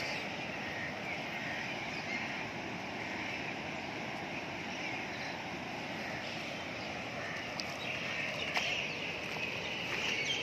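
Steady rush of floodwater pouring across a submerged road, with a few faint knocks in the second half.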